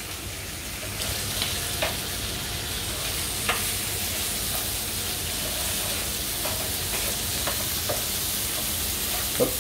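Slices of smoked duck breast and burger patties sizzling steadily on a hot plancha griddle. A cooking utensil clicks and scrapes against the metal plate about eight times as the slices are turned.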